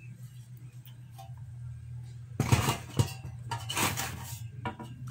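Metallic clatter and rustling from handling an opened microwave oven's sheet-metal chassis and wiring, in two short bursts about a second apart with sharp clicks in the first, over a steady low hum.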